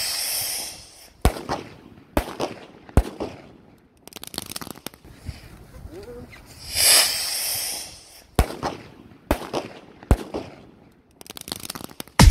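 New Year's Eve fireworks and firecrackers: a loud hissing rush at the start and again about seven seconds in, each followed by three sharp bangs about a second apart, with bursts of rapid crackling around four seconds and near the end.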